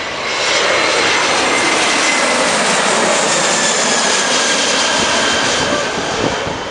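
Airbus A321-200 jet engines on a landing pass: a loud steady rush with a faint whine that slowly falls in pitch, easing off a little near the end.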